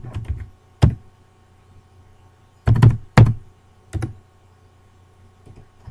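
Computer keyboard keystrokes: several separate clacks spread out with pauses between them, the loudest pair about three seconds in, as text in a code comment is deleted and retyped.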